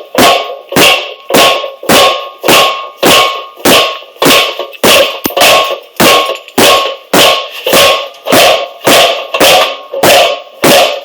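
Hammer blows on the steel of a Chrysler Town & Country wheel hub assembly, a little under two a second in a steady rhythm, each with a short metallic ring: pounding to break a seized hub assembly loose.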